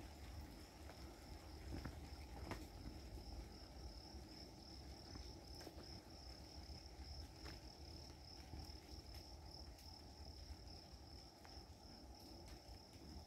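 Faint, steady high-pitched insect trill held at one pitch without a break, over a low background rumble, with a few faint ticks.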